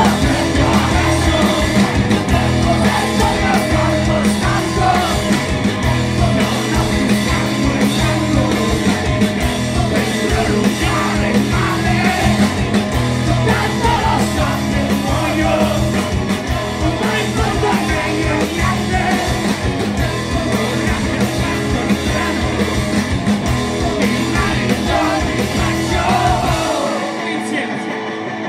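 Live rock band playing loud, with drums, electric guitars and a sung, shouted lead vocal. About a second and a half before the end the drums and bass drop out, leaving the higher parts and voices.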